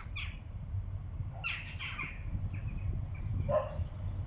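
Harsh bird calls, a few in quick succession and one lower call near the end, over the low rumble of a train approaching in the distance.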